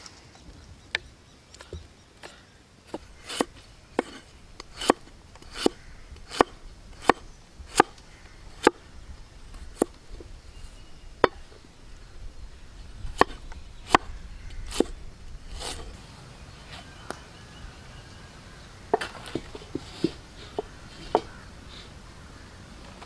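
A kitchen knife chops ginger on a round wooden log-slice chopping board, making sharp knocks about once a second. Near the end a quicker cluster of knocks follows a short pause.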